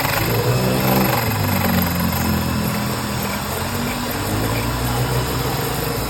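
A motor running steadily with a low, droning hum that wavers slightly in pitch.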